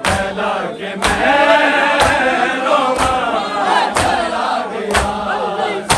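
A group of men chanting a noha in unison, with a sharp beat just under once a second from the mourners striking their chests in matam.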